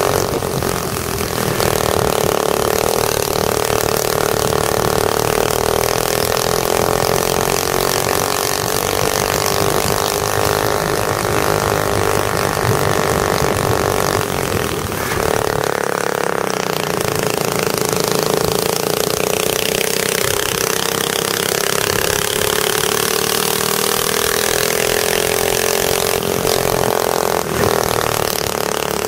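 Go-kart engine running at racing revs. Its note rises and falls with the throttle, dipping briefly about a second in and again about halfway through before climbing again.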